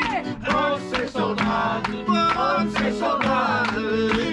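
A man singing to an acoustic guitar that he strums, with people clapping along.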